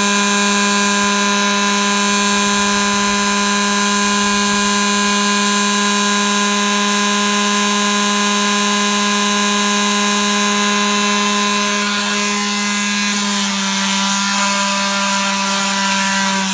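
Electric palm detail sander running continuously with a steady motor whine, its pitch dipping slightly about thirteen seconds in.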